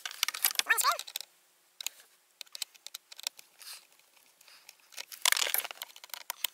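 Scattered clicks and rustling as a screwdriver and hand work at the blower motor's mounting screw under the dashboard, plastic parts creaking. There is a louder scraping rustle about five seconds in.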